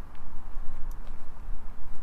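Wind buffeting the microphone, an uneven low rumble that swells and dips, with a couple of faint clicks about a second in.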